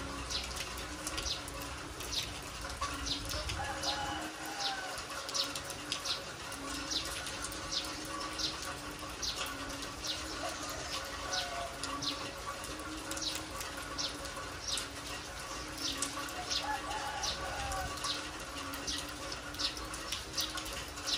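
Steady rain falling on a yard, with water dripping in irregular sharp ticks about once or twice a second. A low, short call repeats about once a second in the background.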